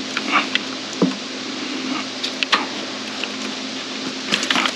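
Scattered small clicks and knocks of hands and a pick working the plastic fuel injector harness connectors on a V8 engine, with a cluster of clicks near the end. A faint steady hum runs underneath.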